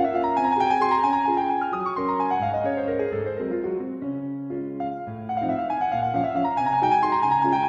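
Classical-style solo piano music, with quick runs of notes sweeping down and up over low bass notes and a brief softer moment about halfway.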